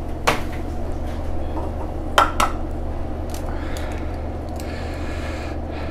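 Eggs being cracked and separated by hand: a sharp tap of eggshell about a third of a second in and two more close together a little after two seconds, over a steady low hum.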